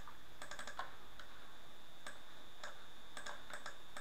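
Scattered light clicks of a computer mouse and keyboard: a quick run of clicks about half a second in, single clicks every half second or so, and another short run near the end, over a faint steady hiss and a thin high whine.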